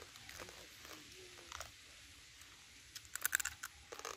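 Shells of stir-fried rice-field crab being cracked and crunched by fingers and teeth: scattered crisp cracks, with a quick cluster of them about three seconds in.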